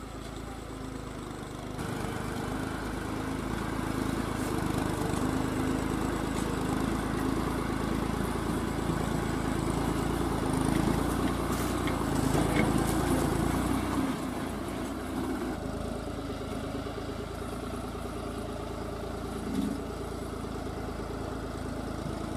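Diesel tractor engine running under load as it hauls a high-piled sugarcane trailer along a muddy track. It grows louder as it comes closer, then drops noticeably about fourteen seconds in.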